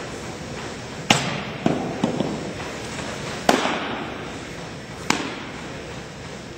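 A softball smacking into a leather catcher's mitt about a second in, followed by a few lighter knocks and more sharp pops of the ball landing in a glove as it is thrown back and caught. Each pop echoes in a gymnasium.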